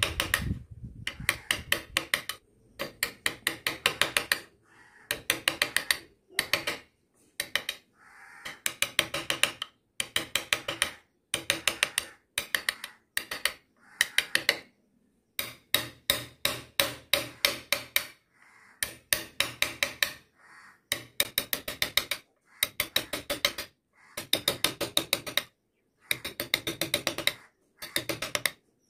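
Flat carving chisel cutting into wood. Each stroke makes a short burst of rapid clicks as the edge slices through the grain and lifts a curled shaving, repeating every second or two.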